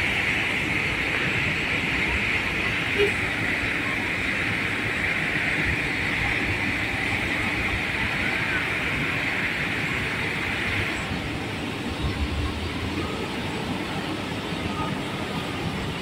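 Steady running noise of a vehicle, with a hiss that fades out about eleven seconds in.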